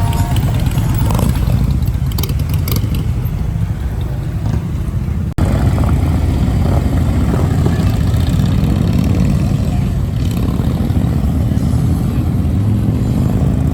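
Motorcycle engines running in slow traffic, a steady low rumble heard from a motorcycle sidecar. The sound cuts out for an instant about five seconds in.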